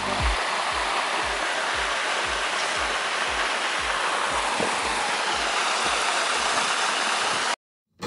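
Mountain river water rushing steadily over granite slabs and rock pools; it cuts off suddenly just before the end.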